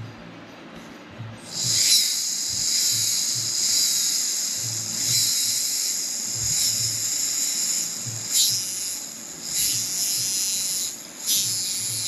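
Background music with a steady low beat. About a second and a half in, a steady high hiss comes in over it and carries on.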